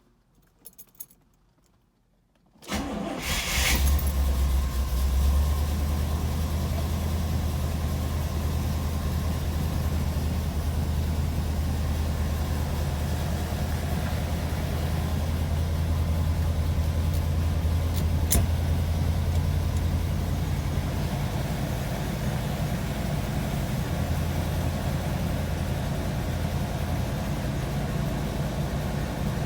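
C3 Corvette V8 cranked and started almost three seconds in after a few faint clicks, then idling steadily with a mystery rattle that the owner suspects is the clutch throwout bearing.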